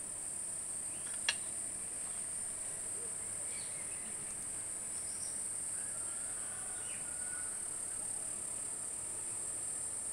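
Steady high-pitched drone of insects chirring. There is a single sharp click about a second in, and faint scattered bird chirps.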